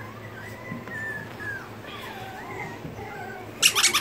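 A Papillon puppy whimpering in thin, high whines that slide up and down. Near the end a loud burst of rapid sharp squeaks or rattles cuts in.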